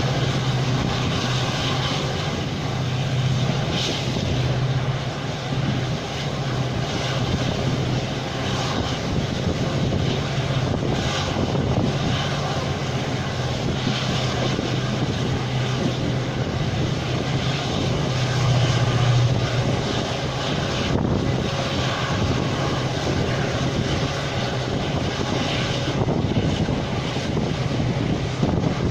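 An express train running at speed, heard from on board: the steady low drone of the hauling EMD WDP-4D diesel locomotive's engine over the continuous rush of wheels and air.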